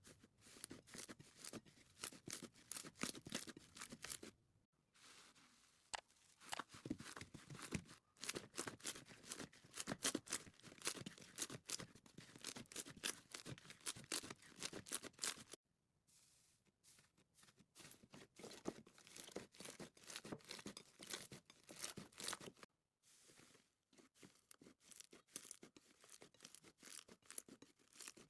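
Slime being squeezed and kneaded by hand, giving fast crackling, sticky popping clicks. The sound stops briefly three times.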